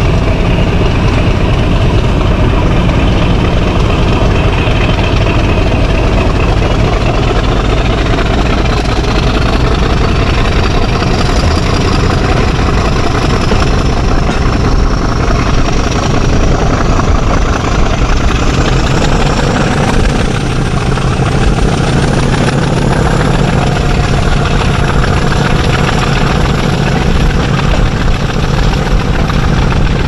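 English Electric Class 50 diesel locomotive 50015, its 16-cylinder engine working hard under full power ('thrash') as the train accelerates. A deep, steady engine drone sits under a high whine that climbs steadily in pitch.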